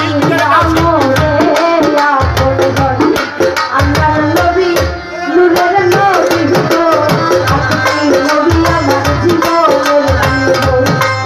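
A woman singing into a microphone over a PA, accompanied by hand drums playing a steady rhythm. The music drops briefly about five seconds in.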